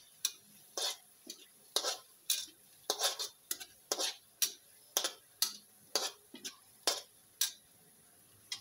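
Metal spatula scraping and knocking against a steel wok while sautéed garlic and onion are stirred, in quick strokes about twice a second.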